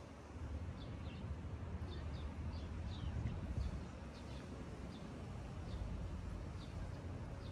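Outdoor city ambience: a steady low rumble of distant traffic, with small birds giving short, high, slightly falling chirps scattered throughout.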